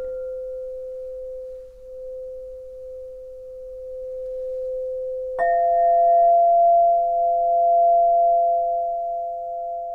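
Outro chime: a steady, pure ringing tone, joined about five seconds in by a sharply struck second, higher tone, the two ringing on together and slowly fading.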